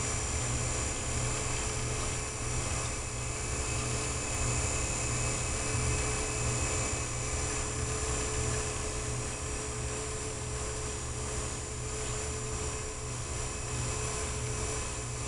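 Small electric motor of a rotating display turntable running steadily: a low hum with a thin, steady whine on top.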